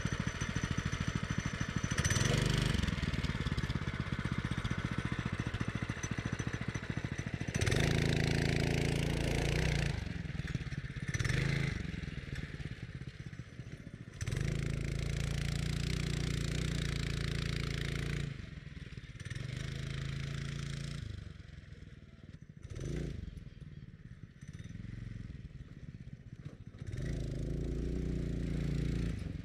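A 196cc single-cylinder OHV engine on a mini off-road buggy revving in repeated bursts as the buggy drives over dirt mounds, easing off between bursts. It grows fainter in the middle as the buggy moves away, then louder again near the end as it comes back.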